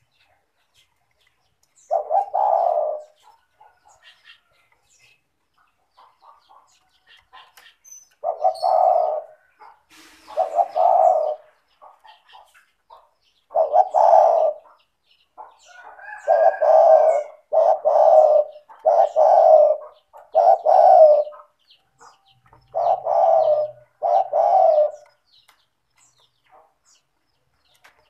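Spotted dove (tekukur) cooing in repeated low phrases, each about a second long, coming in irregular bouts with silent gaps between. Later on there is a quicker run of several coos. Faint small chirps fall in the gaps.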